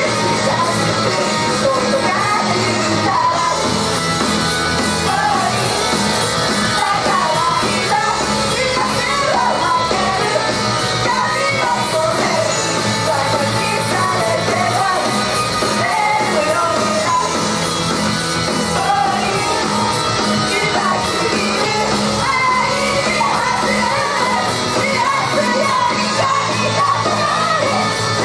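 Live idol pop-rock song played loud through a venue PA: female voices singing into handheld microphones over a rock backing, with shouted parts mixed in.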